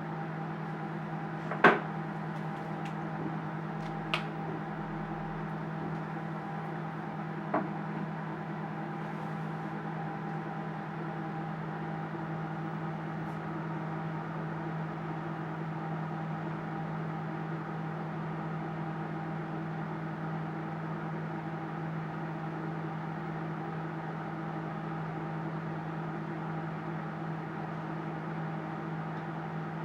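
Microwave oven running with a steady hum while it heats a bowl of chocolate to melt it. Three sharp clicks or knocks come in the first eight seconds, the first the loudest.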